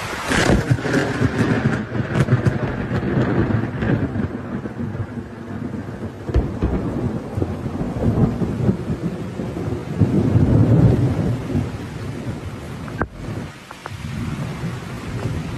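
Heavy rainstorm: steady rain with deep rumbles that swell about a second in and again around ten seconds in.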